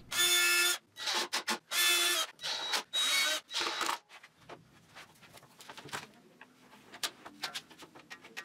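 Cordless driver whirring in about seven short bursts, driving screws through a metal ball-bearing drawer slide into wood. After about four seconds it gives way to faint scattered clicks.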